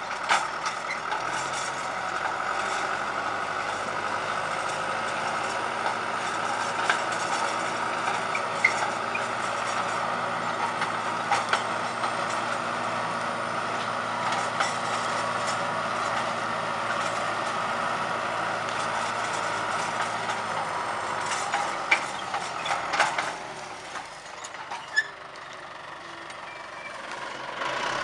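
Farm tractor's engine running steadily under load as it pulls a multi-tine ripper through a field, with a steady whine and scattered sharp clicks and knocks. The engine sound drops for a few seconds near the end, then rises again.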